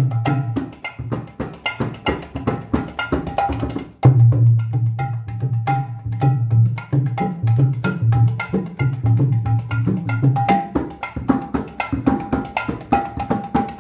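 Clay-bodied mridanga played by hand in a fast, dense rhythm: deep booming bass strokes on the wide head mixed with ringing, pitched strokes on the small treble head. A short break comes about four seconds in, then play resumes with a loud stroke.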